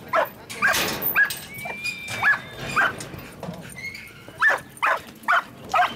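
Young Australian Shepherd barking repeatedly at cattle, about ten sharp barks at uneven intervals.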